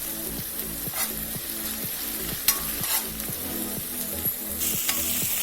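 Crushed ginger and garlic sizzling in hot oil in a pan while a spatula stirs and scrapes them a few times a second. They are being sautéed until their raw smell cooks off.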